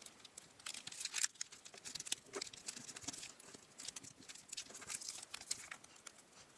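Square of origami paper being folded and creased by hand: irregular soft crinkles, rustles and small taps of paper.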